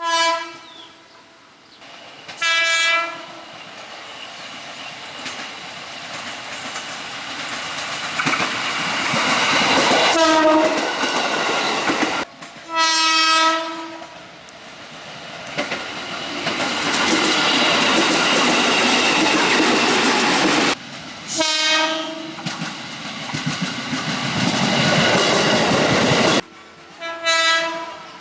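KRL Commuter Line electric trains sounding short horn blasts, the S.35 signal, here a driver's greeting to a trackside railfan. About six blasts fall across several joined clips, with the rush and clatter of trains passing between them. One blast drops in pitch as its train goes by, and the sound cuts off suddenly at each join.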